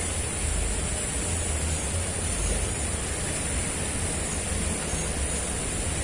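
Steady rush of flowing river water, with a gusty low rumble of wind on the microphone and a steady high hiss above it.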